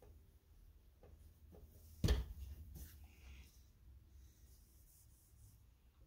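Handling sounds of paper on a wooden table: a few faint taps and a soft rub, with one sharper knock about two seconds in.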